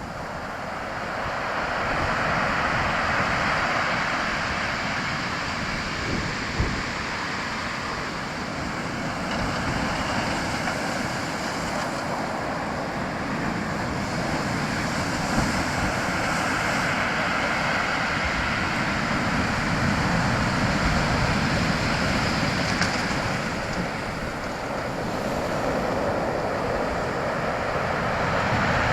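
Strong sea waves breaking on the shore: a continuous rushing wash of surf that swells and eases as each wave comes in, louder again near the end.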